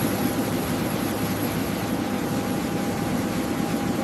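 Aircraft engines running steadily: a constant rushing noise with a low hum, a held mid tone and a faint high whistle.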